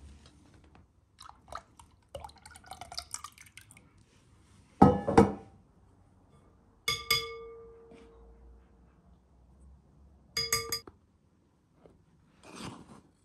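Glass mixing bowl knocked and clinked as ingredients are added: a heavy double knock about five seconds in, then two sharp clinks, about seven and ten seconds in, that ring briefly, with softer scraping between.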